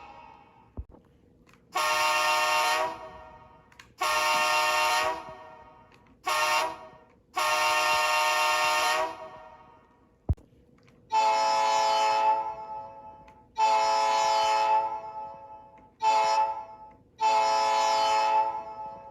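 Two different recorded diesel locomotive air horns from the ESU LokSound 5 2nd Generation Horn Pack 1, played one after the other by the model's sound decoder. Each sounds the long, long, short, long grade-crossing pattern, and the second horn's chord is lower and fuller. A single sharp click comes about a second in and another about halfway, just before the second horn.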